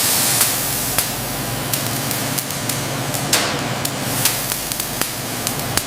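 Factory machinery noise: a steady loud hiss over a low hum, with frequent sharp metallic clicks and knocks.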